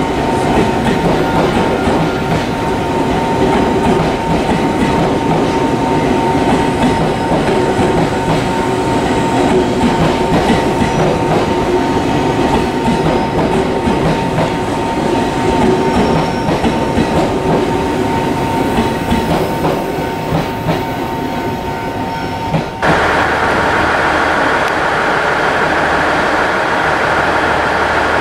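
JR 383 series limited-express electric train rolling along the platform, with a steady rumble and clatter of wheels on rail joints. About 23 seconds in, the sound cuts abruptly to a steadier hum with a low drone.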